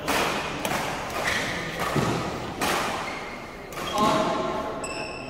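Badminton rally: sharp racket strikes on the shuttlecock and footfalls on the court, spaced under a second to a second and a half apart, echoing in the hall.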